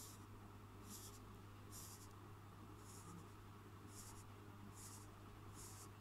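Felt tip of a permanent marker scratching on paper while colouring in, faint short strokes about once a second, seven in all. A steady low hum sits underneath.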